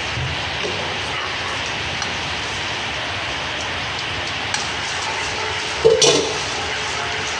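Oil sizzling steadily in a frying pan under minced lemongrass and aromatics mixed with sauces and sugar. The mix is being stirred, with a brief louder clack of the wooden spatula against the pan about six seconds in.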